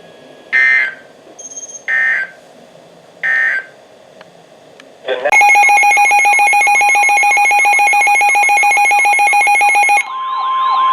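Three short bursts of Emergency Alert System data tones, about a second and a half apart, marking the end of one alert. About five seconds in, the loud EAS alert tone starts for the next warning, a steady tone with a siren-like sweep repeating over it. Near the end it changes to a single steady weather radio alert tone, still with the sweeping over it.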